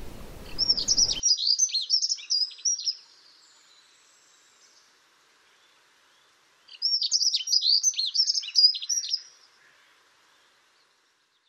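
European robin singing: two short phrases of high, fast, twittering warbles, one at the start and another after a gap of about four seconds. A steady low hiss under the first phrase cuts off suddenly about a second in.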